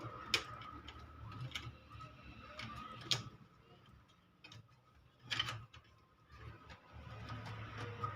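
Scattered light clicks and taps from hands and tools working on an amplifier, a few sharper knocks among them, over a faint steady hum.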